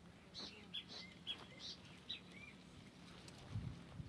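Several short, high bird chirps in quick succession, then a dull low thump about three and a half seconds in.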